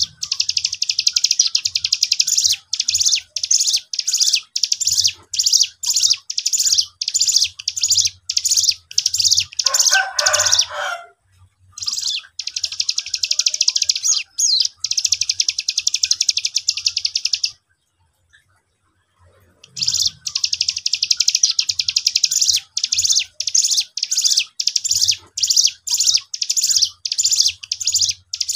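Caged cigun (striated grassbird) singing long runs of rapid, high, repeated notes, breaking off briefly about eleven seconds in and for about two seconds near the middle. A lower, rougher call sounds briefly just before the first break.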